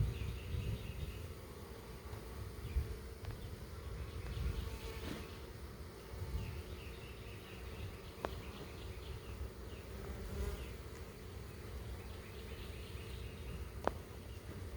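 Honey bees buzzing as a steady, even hum under a low rumble, with two brief sharp clicks partway through.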